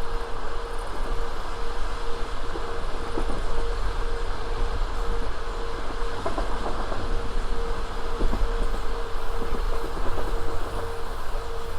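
Passenger train carriage running along the line: a steady rumble of wheels on the rails with scattered clicks of the wheels over the track. A mid-pitched hum pulses on and off at a regular interval throughout.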